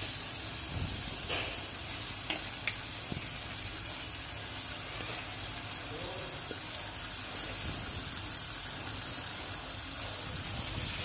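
Onion-and-spice masala sizzling steadily in a non-stick karai as pieces of chewa fish are added to it, with a few light clicks about one to three seconds in.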